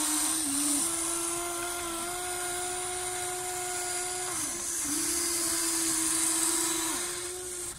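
Huina 1593 RC excavator's electric motors whining steadily as the bucket digs into snow and lifts a scoop, the pitch dipping briefly a few times as the load and moves change.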